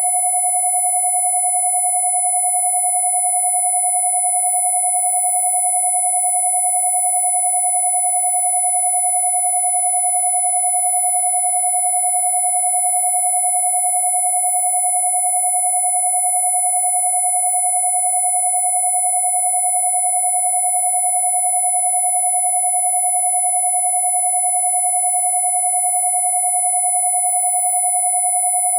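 Two steady electronic sine tones sounding together without change: a mid-pitched 727 Hz tone and a very high-pitched 10,000 Hz tone.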